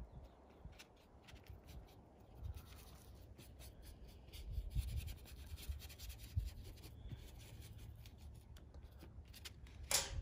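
Small paintbrush scratching and rubbing over paper in short, quick overlapping cross-hatch strokes, working gouache paint into the sheet, with a few low handling bumps. One sharper, louder scrape comes near the end.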